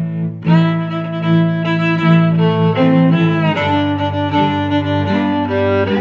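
Background music on bowed strings: a held low note under a slowly moving line of higher notes, swelling in about half a second in.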